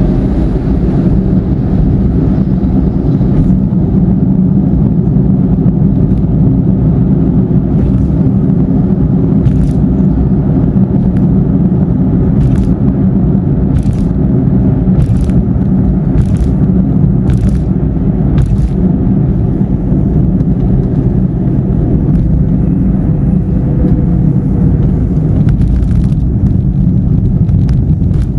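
Steady low rumble of a car driving on a rain-soaked toll road, heard from inside the cabin: tyre and road noise with the engine underneath. Midway there is a run of faint, short high swishes about once a second.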